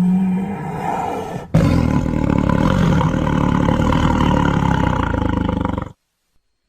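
Recorded tiger roar sound effect played back: a long, loud, rumbling roar that starts suddenly about a second and a half in and cuts off abruptly near the end, leaving dead silence.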